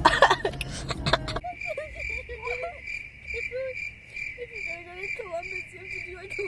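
Crickets chirping in a steady, even pulse a few times a second, with faint lower warbling calls beneath them. A burst of louder mixed noise cuts off about a second and a half in, where the chirping takes over.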